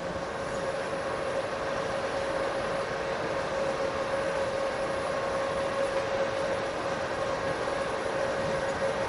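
Steady machine hum with a constant mid-pitched tone from the Yaskawa Motoman HC10DT collaborative robot arm's joint drives as it is jogged slowly to a calibration point.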